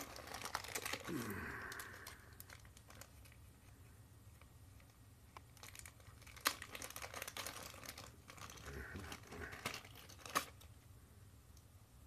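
Thin clear plastic packaging being crinkled and handled, a run of small crackles, with two sharper clicks in the second half.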